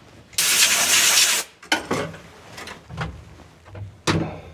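A one-second blast of compressed air from an air hose, blowing dirt off the spark plugs on top of the engine, followed by a few light knocks and clunks.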